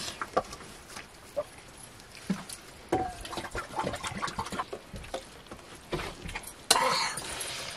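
Fingers gathering rice and beans from a steel plate while eating by hand, a run of small clicks and scrapes. Near the end comes one louder, noisy sound lasting about a second.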